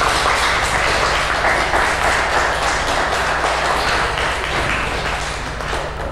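Applause: a small group of people clapping, over a steady low hum.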